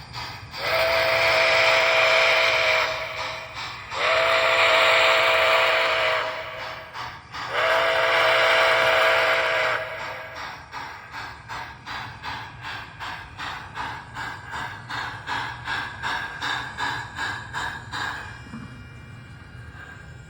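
Sound system of an MTH model of Nickel Plate Road 765 steam locomotive blowing three long, hissy steam-whistle blasts, with the rhythmic chuff of the running engine about three times a second underneath and after them, fading near the end.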